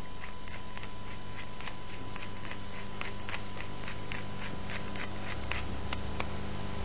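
Wooden pepper mill being twisted, grinding black pepper with a steady run of small crunching clicks, about three a second.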